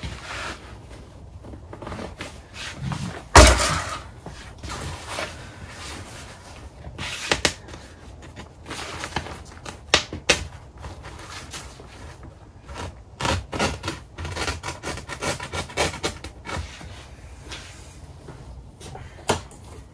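Scissors snipping and the tent's fabric wall rustling as it is cut and handled, with scattered clicks and one louder, sharp handling noise about three seconds in.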